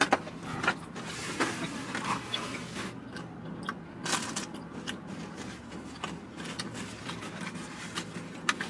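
Chewing crispy thin-crust pepperoni pizza, with irregular sharp crunches and clicks scattered throughout.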